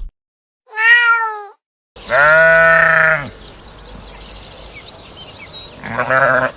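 A cat meows once. Then a sheep bleats twice, a long bleat and a shorter, wavering one near the end, with faint bird chirps behind.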